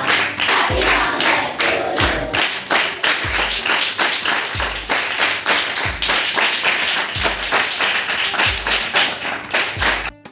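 A group of children clapping along to music with a steady deep bass beat. The clapping and music cut off abruptly near the end.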